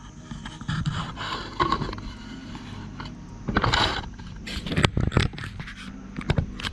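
Scraping and a series of sharp knocks as the opened ICOM IC-2200T radio's metal chassis with its finned heatsink is handled and turned around on a plastic cutting mat. The loudest scrape comes past the middle, followed by several quick knocks.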